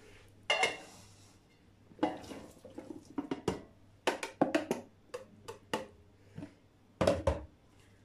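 Chopped plums being put into a cooking pot: a dozen or so irregular clinks and knocks of kitchenware against the pot, the loudest about seven seconds in.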